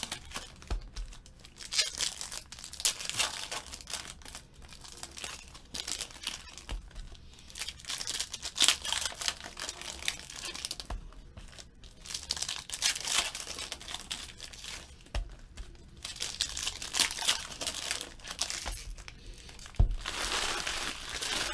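Foil wrappers of 2014 Panini Select football card packs being torn open and crinkled by hand: irregular crackling rustles in runs with short pauses, and a few soft knocks.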